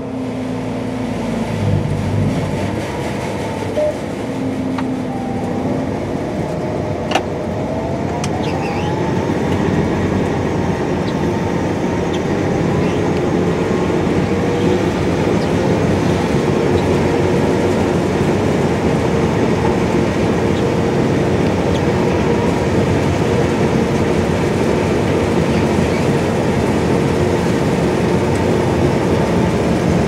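CLAAS Lexion 7500 Terra-Trac combine's Mercedes-Benz OM470 six-cylinder diesel and threshing machinery running steadily, heard from the cab. Its pitch climbs over several seconds about ten seconds in, then holds.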